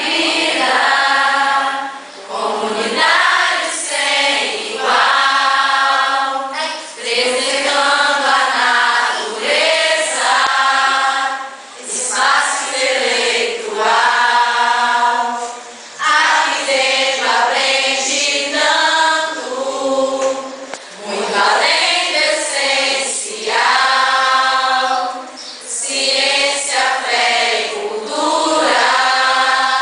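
A large choir, mostly women's voices, singing a song together in phrases of about two seconds with short breaks for breath between them.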